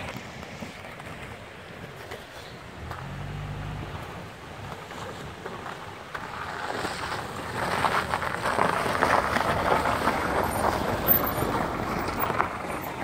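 Toyota Prado SUV driving slowly over snow toward the listener and passing close by: a low engine hum, then the crunch and hiss of its tyres on packed snow growing louder from about seven seconds in.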